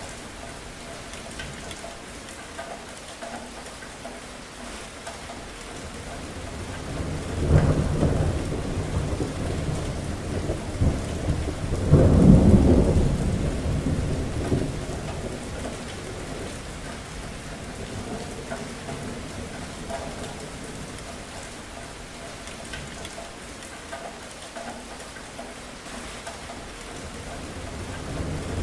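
Thunderstorm: steady rain with two rolls of thunder, the first about seven seconds in and a louder one about twelve seconds in, each rumbling and fading over a few seconds. Another thunderclap begins at the very end.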